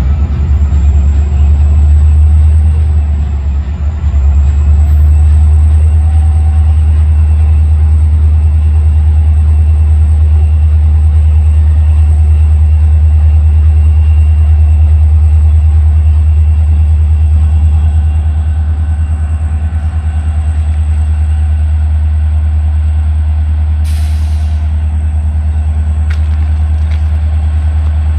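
Diesel freight train running close by: a loud, steady low rumble of locomotive engines with a thin, steady high whine over it, and a short burst of hissing noise near the end.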